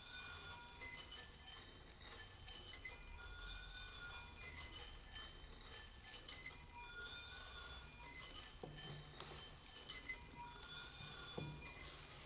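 Rice grains streaming from a swinging cone pendulum onto a row of small ceramic bowls. The grains patter on the bowls and set them ringing in several clear high pitches that change as the stream moves from bowl to bowl. Two soft low knocks come near the end.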